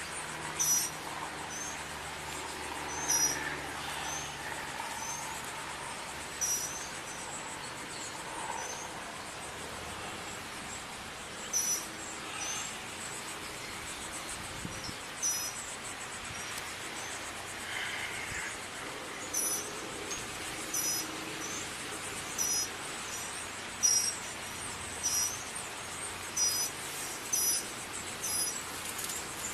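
Short, high-pitched bird chirps repeating irregularly, about one every second or two, over steady outdoor background noise. A low hum underneath stops about seven seconds in.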